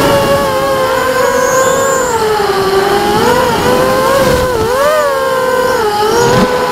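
ImmersionRC Vortex 285 racing quadcopter's brushless motors and propellers whining, heard from the quad's own onboard camera. The pitch rises and falls continuously as the throttle changes through the turns, with a sharp upward swing about two-thirds of the way through.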